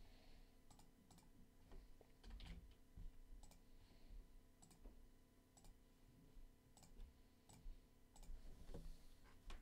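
Faint, irregular clicks of a computer keyboard and mouse, typing a short entry and clicking.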